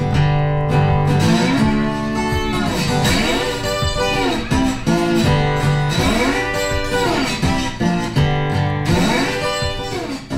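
Background music: a guitar-led instrumental track, its notes sliding and bending up and down over a steady bass line.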